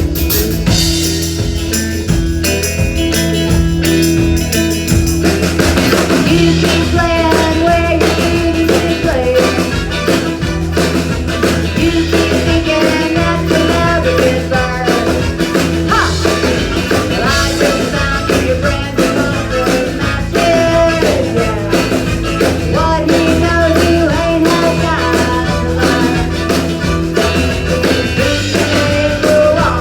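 Live band playing upbeat rock and roll, with a steady drum beat, bass and guitar. About six seconds in, a melody line comes in over the band.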